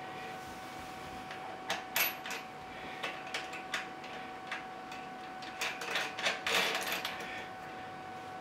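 Small metal clicks and clinks as a nut and washer are handled and threaded by hand onto a toilet's floor bolt, a scattered handful, busiest near the end, over a faint steady hum.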